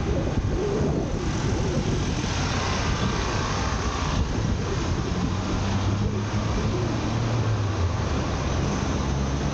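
Road traffic: a steady wash of passing vehicle noise, with a low engine hum growing stronger about halfway through.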